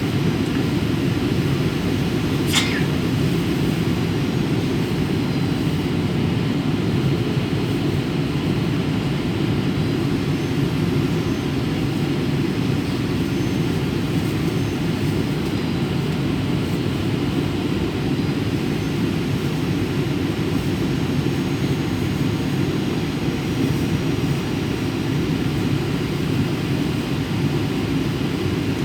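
Boeing 737 cabin noise on approach to landing: a steady, low rush of engines and airflow. There is a short sharp high sound about two and a half seconds in.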